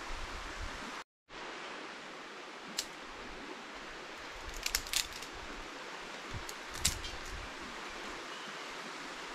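Steady rush of a shallow river with a few sharp clicks and snaps, clustered near the middle, as kindling is worked in a steel fire ring to start a campfire. A brief dropout about a second in.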